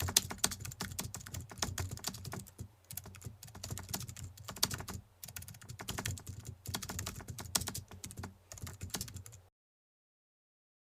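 Rapid, irregular clicking over a faint low hum, cutting off abruptly about nine and a half seconds in.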